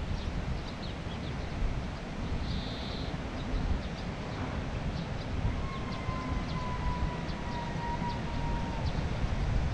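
Outdoor ambience dominated by wind buffeting the microphone, with faint high chirps scattered through it. From about halfway, a long faint tone of unclear origin slides slowly lower for a few seconds.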